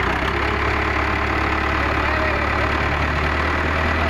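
Powertrac tractor's diesel engine running steadily while hauling a trolley heaped with soil.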